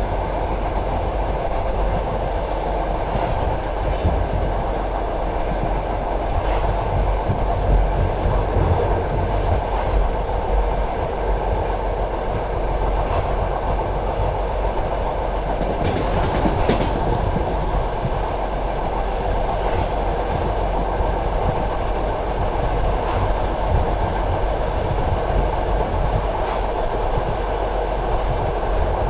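Passenger train carriage running along the track: a steady rumble of wheels on rails, with occasional faint clicks from the wheels passing rail joints a few seconds apart.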